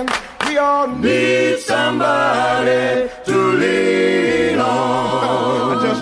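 Music: several voices singing a cappella in close harmony, holding long chords with short breaks between phrases.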